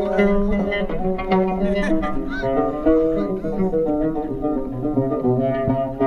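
Background music, a melody on stringed instruments.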